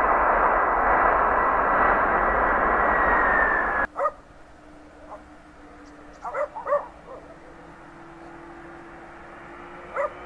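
Airbus A310 jet engines running at high power on the runway: a loud steady rush with a thin whine on top, which cuts off abruptly about four seconds in. After that comes a quiet stretch with a faint, slowly rising hum, and a dog barks a few times in two short bursts.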